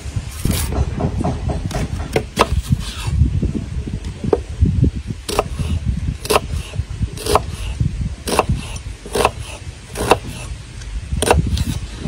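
Kitchen knife cutting an onion on a wooden chopping board: sharp knocks of the blade hitting the board, about one a second in the later part, over a low steady rumble.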